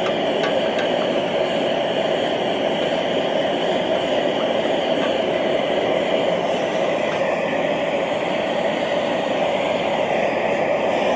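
Small forge burner running with a steady rushing noise that does not change.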